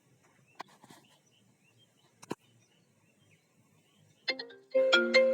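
A few faint clicks, then about four seconds in a phone ringtone starts: an iPhone-style melody of bright, stepped notes, made by a name-ringtone app.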